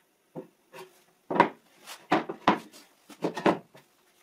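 A string of short wooden knocks and scrapes, about seven, the loudest about a second and a half in, as a plunge router's metal base is handled in a snug-fitting hole cut in a plywood board and lifted back out.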